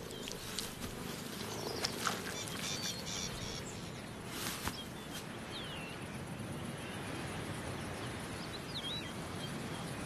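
Open grassland ambience: a steady outdoor hiss with a few short, curving bird chirps and faint scattered clicks, and a brief burst of noise about halfway through.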